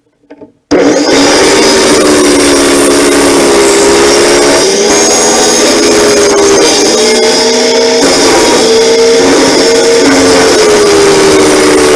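High-speed electric grinder running hard as it grinds down the engine's cylinder fins to clear the reed block, its whine drifting up and down in pitch as the load changes. It starts abruptly about a second in.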